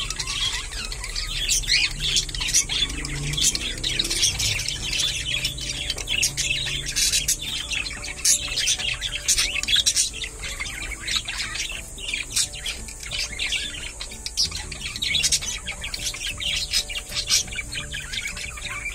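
Several budgerigars chattering: a dense run of quick, high chirps and squawks, overlapping without pause.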